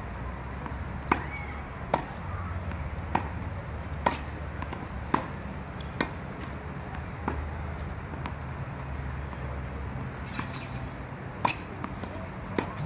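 Tennis ball struck by rackets in a volley exchange at the net: sharp pops about once a second, with a gap of a few seconds after the middle, over a steady low rumble.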